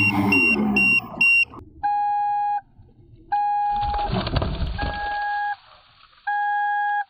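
Electronic beeping: rapid short high-pitched beeps at about three a second for the first second and a half, then long lower beeps of under a second each, four times at regular intervals. A rustling noise comes in between about 3.5 and 5 seconds in.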